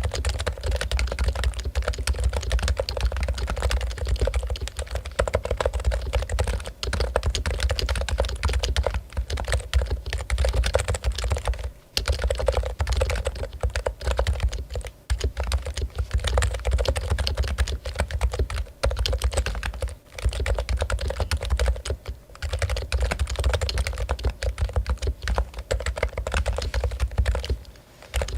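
Fast continuous typing on a Topre Realforce keyboard: rapid electrostatic-capacitive keystrokes with rubber-dome switches, pausing briefly now and then.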